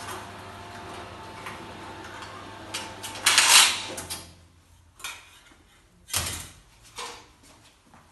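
Metal clanking from a rain-gutter downspout forming machine being handled. A steady machine hum stops about four seconds in, and several separate sharp knocks follow.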